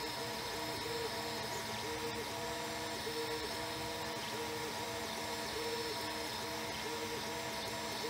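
Fabrikator Mini 3D printer running: its stepper motors sing in short pitched tones that change several times a second as the axes move, over a steady hum.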